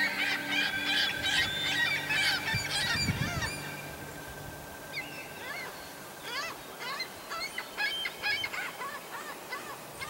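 A flock of birds calling: many short calls overlapping thickly for the first few seconds, then thinning to scattered calls.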